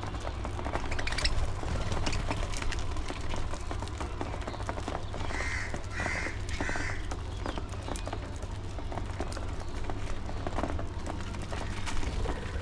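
Three harsh bird calls in quick succession, about half a second apart, about halfway through, over scattered sharp ticks and clicks and a steady low hum.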